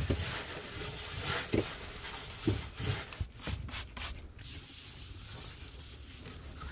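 Cloth wiping and scrubbing across a gas stovetop and countertop, a steady rubbing with a few light knocks in the first half.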